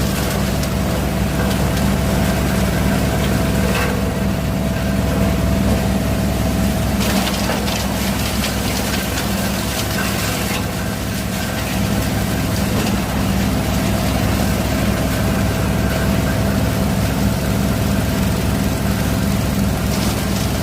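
Waste-sorting machine with conveyor belt running steadily: a constant low motor hum with a rough, noisy clatter over it, which gets louder for a few seconds about seven seconds in.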